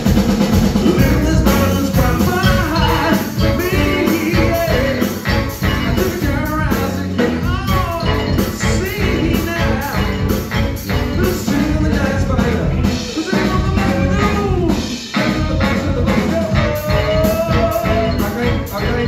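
A live rock band playing loudly through its stage PA: drum kit and bass under a bending melody line.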